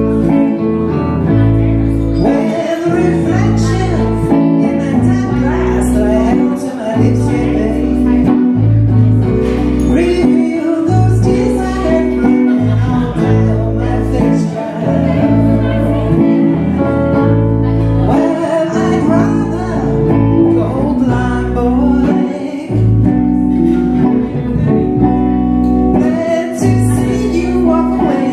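A small live band playing: electric guitars with a woman singing the lead vocal into a microphone.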